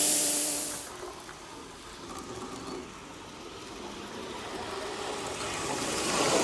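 Accucraft Royal Hudson Gauge 1 live-steam locomotive, butane-fired: a loud hiss of steam dies away within the first second. The locomotive then runs along the track, its sound building steadily as it comes close and passes near the end.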